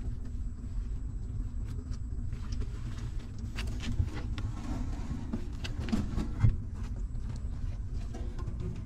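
Newborn puppies suckling from their mother dog: irregular small clicking sounds over a steady low rumble.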